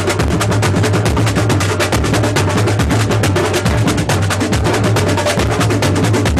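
Batucada drum ensemble playing a fast, steady rhythm through a sound system: quick sharp drum strokes, many a second, over a continuous low drum.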